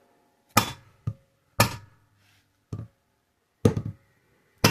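A dead-blow hammer striking the valve stem tips of an assembled cylinder head, six sharp blows about a second apart, to seat the valve spring retainers and locks.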